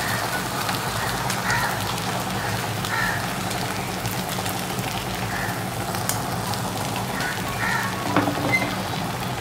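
Egg omelette frying in hot oil in a nonstick pan: a steady sizzle with scattered faint crackles.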